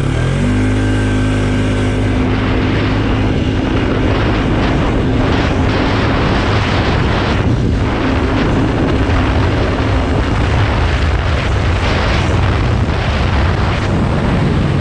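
Polaris ATV engine accelerating, its pitch rising at the very start, then running steadily at high speed on a dirt trail, under a loud rushing noise.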